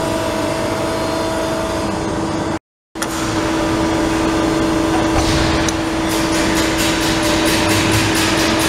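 Bystronic Xact Smart press brake running with a steady hum, broken by a short dropout about a third of the way in. From about halfway a fast, even pulsing, about four a second, joins the hum as the machine is worked.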